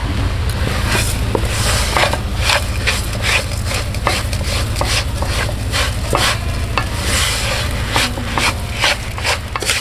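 Wooden spatula stirring and scraping thick roasted cornmeal-and-ghee halwa dough in a non-stick kadai in quick repeated strokes, about three a second, working in sugar that has just been added.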